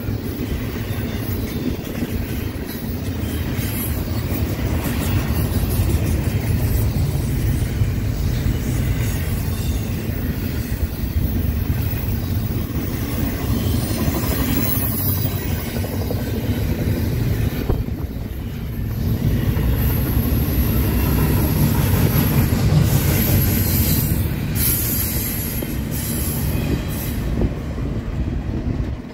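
Double-stack container train's well cars rolling past close by: a steady rumble of steel wheels on rail with clacking over the joints, and high-pitched wheel squeal for several seconds in the second half.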